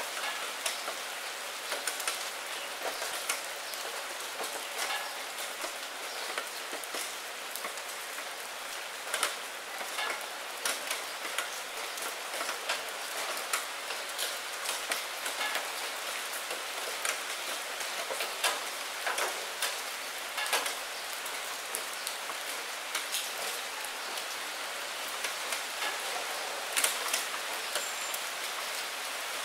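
Steady rain on a window pane, a constant hiss with many single drops tapping at irregular moments.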